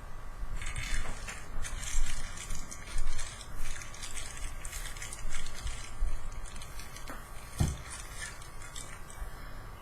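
Irregular plastic clicking, rattling and rustling as a Beyblade spinning-top toy and its packaging are handled, with a dull knock about three-quarters of the way through.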